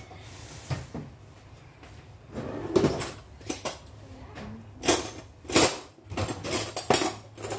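A series of separate knocks and clatters of household things being handled and moved about, like a cupboard or drawer being opened and shut, with the loudest bangs a little past halfway.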